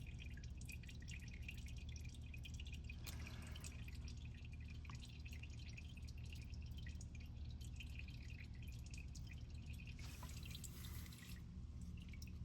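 Engine oil dripping from the underside of the car: many small, irregular drips over a low steady hum, the sign of an engine oil leak.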